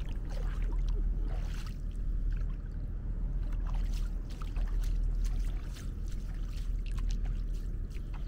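Shallow water splashing and sloshing in quick, irregular bursts over a steady low rumble.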